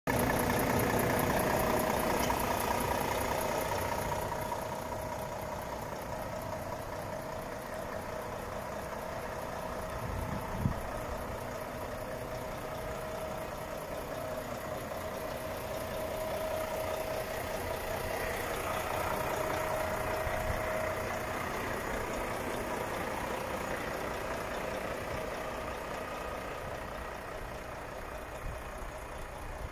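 Volvo FH 540 truck's 13-litre straight-six diesel idling steadily, louder at first and dropping after about four seconds. A single sharp click about ten seconds in.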